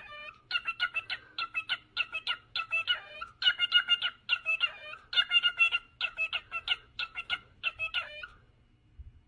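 A bird calling in a fast, even series of short, pitched notes, several a second, which stops about a second before the end.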